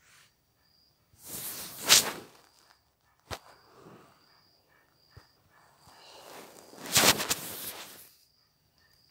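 Handling noise from the recording phone being turned and tapped: two rustling scrapes about five seconds apart, with a sharp click between them.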